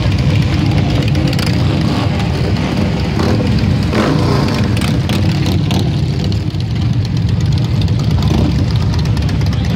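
Several Harley-Davidson touring motorcycles, with V-twin engines, running at low speed as they roll slowly past. Their engines make a steady low-pitched drone.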